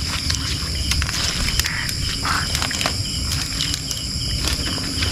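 Night chorus of crickets and other insects: a steady high-pitched trilling on several pitches, over a low rumbling noise with scattered soft clicks.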